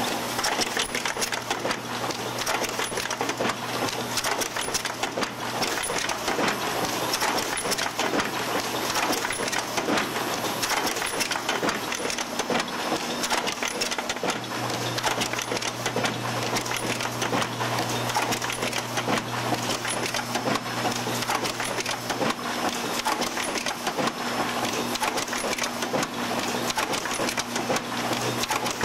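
Automated floppy-disk assembly machinery running: a dense, continuous clatter of small parts and clicking mechanisms over a steady low hum, the hum louder for a stretch midway.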